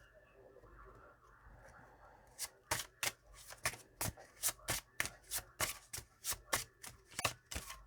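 Tarot deck being shuffled by hand: after a couple of seconds of faint rustling, the cards slap together in a steady rhythm of about three sharp clicks a second.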